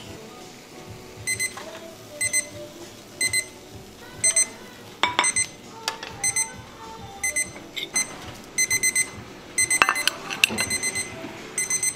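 Digital kitchen timer beeping its alarm in short, high electronic pips about once a second, the signal that the cooking time for the croffles is up, with the beeps coming faster near the end. Metal tongs clack against the waffle plate a few times, the loudest about five seconds in and again about ten seconds in.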